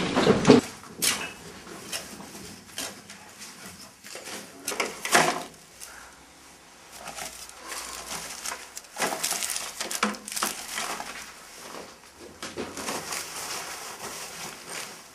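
Rummaging through rubble: scattered clinks, knocks and rustles as broken brick and debris are shifted and a small wooden box is handled. The loudest knocks come at the start and about five seconds in.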